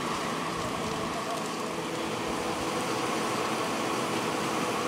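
Steady rushing roar of a wildfire burning through pine forest, with the even hum of a fire engine running underneath.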